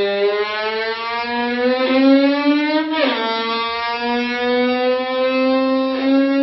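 Violin bowed to imitate a motorbike: one held note whose pitch climbs slowly like an engine accelerating, drops suddenly about three seconds in like a gear change, then climbs again.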